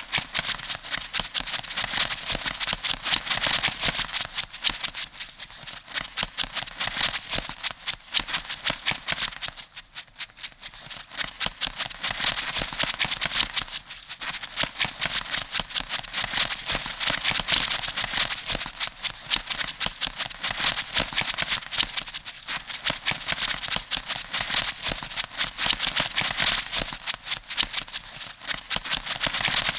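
Crab sound effect: a fast, dense run of dry clicks and rattles, the scuttling clatter of a crab's legs and claws. It carries on with only two short lulls, about a third and about halfway through.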